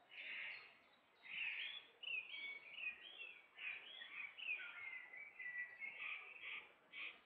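Songbird singing: a fast run of high warbling, chirping notes, with a brief phrase at the start, a short gap, then nearly unbroken song until just before the end.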